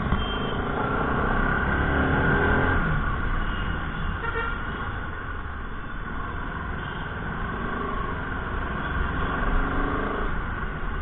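Motorcycle riding through traffic: the engine runs under a steady rumble, its pitch rising around two to three seconds in, and vehicle horns honk.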